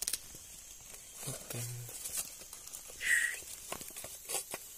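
Dry bamboo leaf litter rustling and crackling in a few sharp clicks as a baby cobra is let go into it. A short low hum from a man comes about a second and a half in, and a brief hiss about three seconds in.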